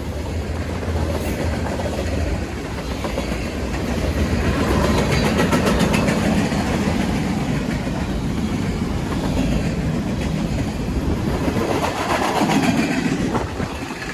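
Freight train rolling past: a steady rumble of the cars, with wheels clattering on the rails, loudest around the middle.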